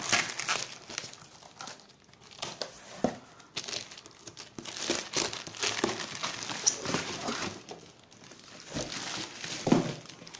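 Plastic wrapping crinkling and rustling as hands handle a plastic-wrapped toilet cistern in its cardboard carton, with a few short knocks, the loudest near the end.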